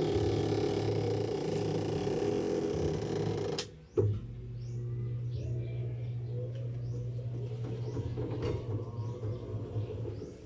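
Automatic washing machine running with a steady hum, which stops abruptly a little over three and a half seconds in. It starts again half a second later with a steady low hum, and faint high squeaks come through over it.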